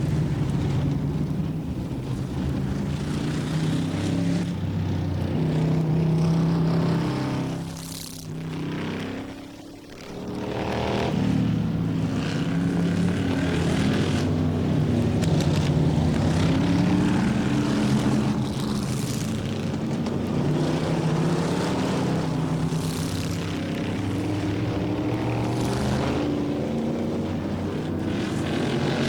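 Stock car engines running hard on a short oval track during practice laps, the engine pitch rising and falling as the drivers shift and back off. Around eight seconds in the sound drops away briefly, then a car comes back in and swells up again.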